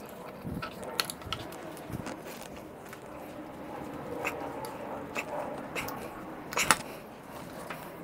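Hand-handling noise from an electric motor being taken apart: light clicks, taps and rustling as wire spade terminals are pulled off and the armature is slid out of its aluminium housing. A sharp click about two-thirds of the way through is the loudest sound.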